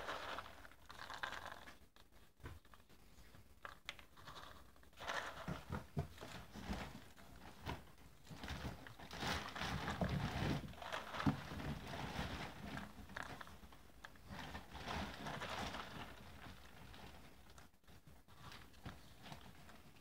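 Firework stars rattling and scraping as they are scooped by hand from a basin and packed into a paper shell hemisphere, with paper rustling. The handling is uneven, with many small clicks and rustles, busiest around the middle.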